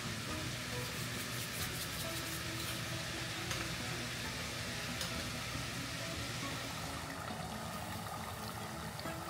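A spoon stirring a vinegar dip in a glass bowl, the liquid swishing with a few light clinks, over soft background music.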